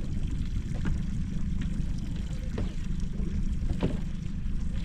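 A boat's motor running at idle as a steady low rumble, with water lapping and a few light knocks against the hull.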